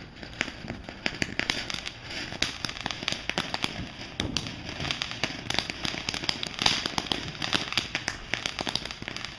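Ground fountain firework spraying sparks with a dense, irregular crackling over a steady hiss.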